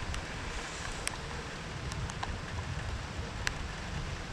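Steady rain hiss with wind buffeting the microphone in uneven low rumbles, and a few sharp ticks of drops hitting close by, the clearest about a second in and three and a half seconds in.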